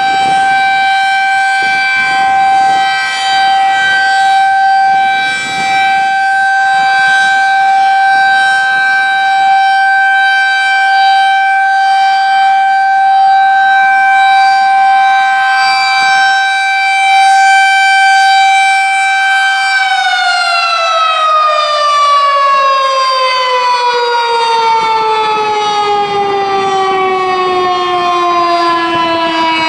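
Federal Signal 2001-SRN single-tone electromechanical siren, slowly rotating, sounding a steady alert tone. About twenty seconds in, the tone stops holding and the pitch falls slowly and smoothly as the siren's rotor winds down at the end of the test.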